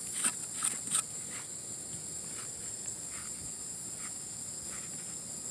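Steady high-pitched chirring of crickets or other insects, with a few sharp clicks in the first second.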